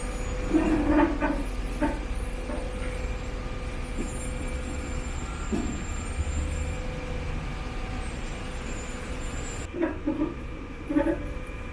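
Four-wheel-drive vehicle engine running steadily at low speed as it tows a loaded boat trailer, a low rumble throughout, with a few short louder sounds about half a second in and again near the end.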